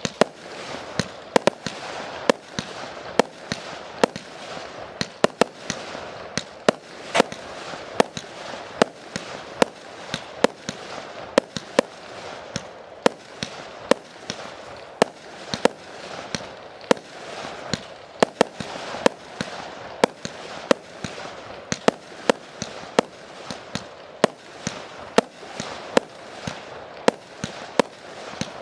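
Fireworks display: a rapid, irregular run of sharp bangs, about two a second, over a continuous crackling hiss.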